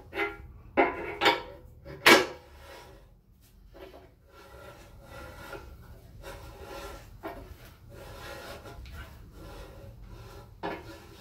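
Half-inch pipe-thread tap turned with an adjustable wrench, cutting threads into an aluminium oil pan: metal rubbing and scraping as the tap bites. A few sharp knocks come in the first two seconds.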